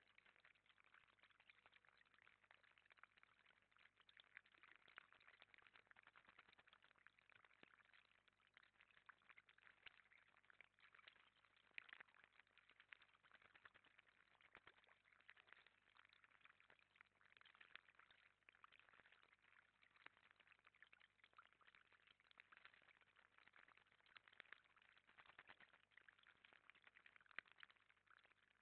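Faint, steady trickling of water in a small garden pond with a cascade, with many small irregular splashes as a common blackbird bathes in it.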